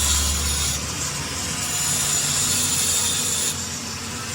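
Harsh, hissy scraping of a tool working on metal, coming and going in stretches of a second or two.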